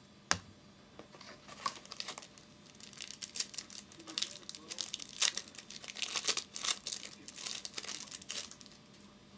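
Wrapper of a football trading card pack being torn open and crinkled, in a long run of irregular crackles. A single sharp click comes just before it starts.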